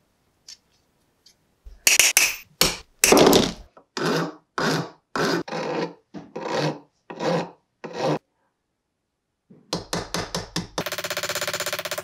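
About ten rough, rasping hand strokes of abrasive work on the pocket knife's brass pins and maple scales, each about half a second. Near the end a rapid, even run of light hammer taps starts: a small ball-peen hammer peening the brass pins over a steel vise anvil.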